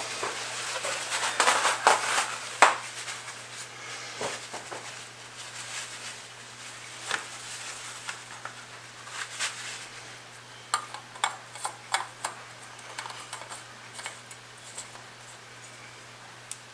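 Light plastic clicks and clatter of an engine's oil filler cap and oil bottle being handled while oil is topped up, louder and busier in the first few seconds, with a faint steady low hum underneath.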